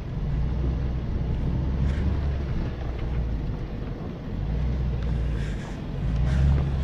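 Range Rover Sport's engine pulling in low range (4LOW) as the SUV crawls up a rocky dirt slope: a steady low rumble that swells near the end, with a few faint crunches of the tyres on loose stones.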